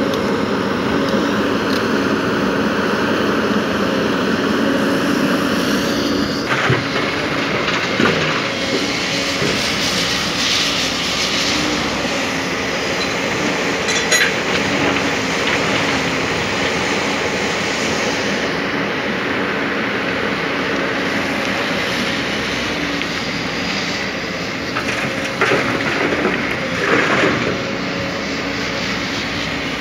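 Heavy diesel engine running steadily, with a few short knocks and rattles now and then.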